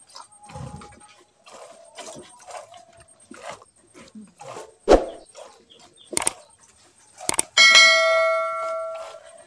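Hand milking of a cow into a plastic bucket: a run of short squirts of milk, broken by two loud sharp sounds around the middle. Near the end comes a click and then a loud ringing notification-bell ding that fades out. It is the sound effect of a YouTube subscribe-button animation.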